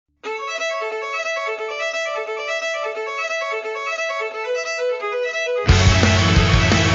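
Song intro: a violin playing a fast, repeating figure of short notes. About five and a half seconds in, a full rock band with drums comes in suddenly and much louder.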